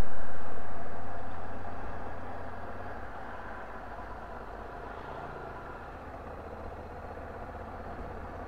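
Honda Africa Twin's parallel-twin engine running with road noise. The sound is loud at first and drops over the first few seconds to a steady, lower level.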